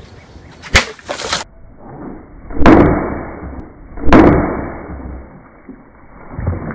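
Baseball bat smashing a water-filled plastic gallon milk jug. There is a sharp crack about a second in. Then come two heavy, low, slowed-down hits about a second and a half apart, each fading out over a second or so as the water bursts out, and a softer one near the end.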